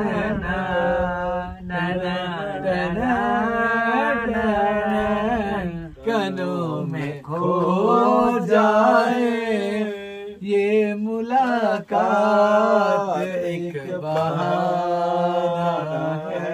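A man singing a song unaccompanied, drawing out long, wavering melodic notes, with short pauses for breath about six and twelve seconds in.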